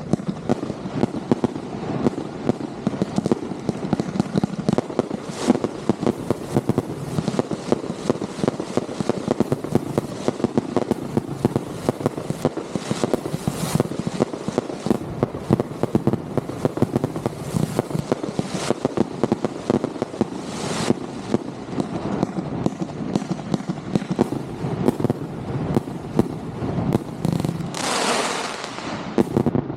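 Consumer fireworks going off in rapid, dense succession, with constant crackling and bangs and a rising whoosh near the end.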